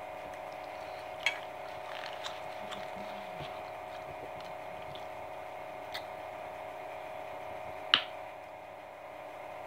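A person chewing food with a few wet mouth sounds and sharp clicks; the loudest click comes about eight seconds in. A steady hum runs underneath.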